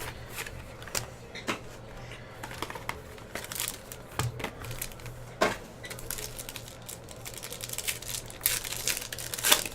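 A sealed trading-card hobby box being handled and opened by hand: irregular clicks and taps of cardboard with crinkling of its wrapper, a louder cluster of clicks near the end.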